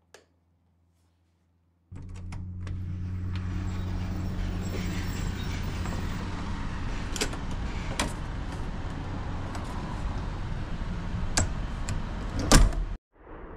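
A wall light switch clicks once, then after about two seconds of silence a steady low outdoor hum comes in, with a few sharp clicks and knocks. Near the end the lever handle and latch of a metal container-room door are worked, giving the loudest clack.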